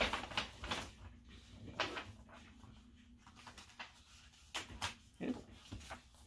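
Paper notebooks and business cards being handled: a string of short rustles and light taps.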